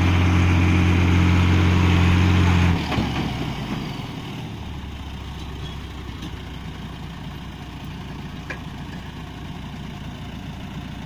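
Heavy diesel engine running at high, steady revs under load during a truck recovery pull, then throttled back sharply about three seconds in and settling to a low idle.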